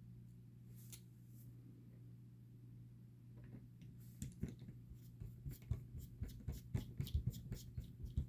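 A faint steady hum, then, from about four seconds in, a quick run of small clicks and taps: fingers and a small screwdriver handling the tiny screws and ring of a 1/24-scale aluminium beadlock wheel.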